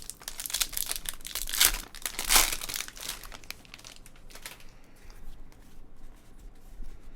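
Plastic trading-card pack wrapper crinkling and tearing as a pack is opened. It is loudest about two seconds in and fades to lighter crackles after about four and a half seconds.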